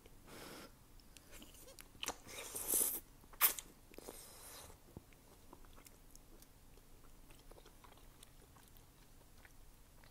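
Close-up eating sounds of wide Korean glass noodles: a couple of loud wet mouth noises about two to three and a half seconds in, then quieter chewing with small clicks.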